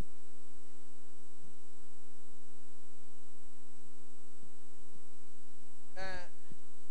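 Steady electrical mains hum with a ladder of evenly spaced overtones. A brief voice sounds about six seconds in.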